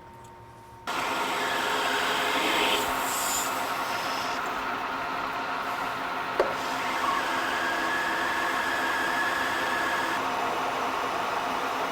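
A machine tool starts abruptly about a second in and runs steadily, with one sharp click partway through.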